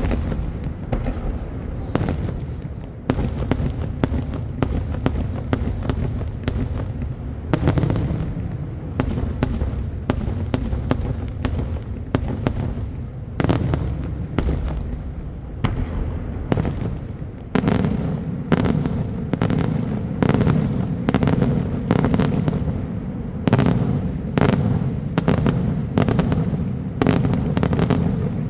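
Daytime fireworks display: a rapid barrage of sharp bangs, roughly two a second, over a continuous low rumble of echoing reports that grows heavier past the midpoint.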